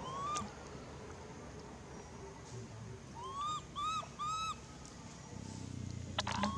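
Macaque coo calls: one short rising-then-falling call at the start, then three quick arched calls in a row about three seconds in. A low steady hum comes in near the end, with a sharp click just before the end.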